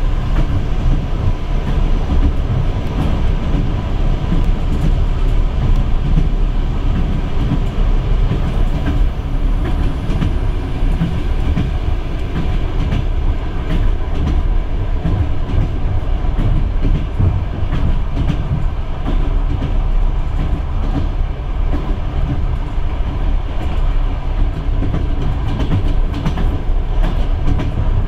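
Moving passenger train heard from inside the carriage: a steady rumble of the wheels running on the rails, with faint scattered clicks from the track.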